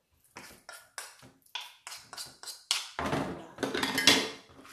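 Wooden spatula knocking and scraping against a plastic mixing bowl while thick zucchini fritter batter is worked: a run of short taps a few tenths of a second apart, then louder, busier knocking and scraping over the last second and a half.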